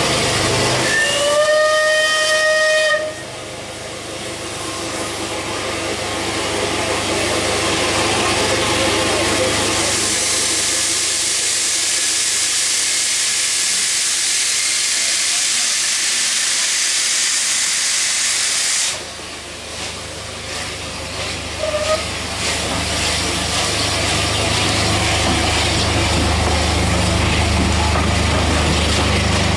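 Bulleid Battle of Britain Pacific steam locomotive sounding its whistle, one chime of about two seconds. Then steam hisses loudly from the cylinder drain cocks as it starts off, building and cutting off suddenly about two-thirds of the way through. Near the end a low rumble of the train getting under way rises.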